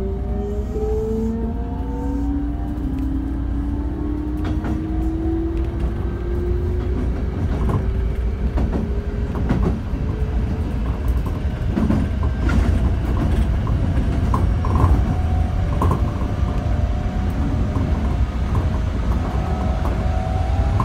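Keikyu 600 series train with a Mitsubishi GTO VVVF inverter pulling away, heard from inside the car: the inverter whine climbs in pitch over the first several seconds as the train gathers speed. Then the wheels clack over rail joints and points under a steady running rumble, and a steady inverter tone returns near the end.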